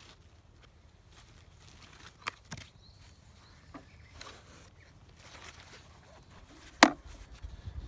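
Handling noises: a few light clicks and knocks as a Jackery Portable Power 240 power station is lifted and set down on the ground, then one sharp knock near the end as the charger-and-cable pouch is picked up.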